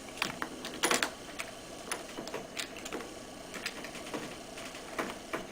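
Scattered light clicks and taps of a lever-type quick-release battery terminal connector being handled on the battery post, the loudest about a second in.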